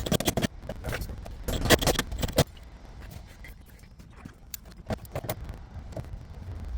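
Hard clattering and clicking of tools and metal hardware being handled, with two heavier bursts in the first half second and around two seconds in, then scattered single clicks.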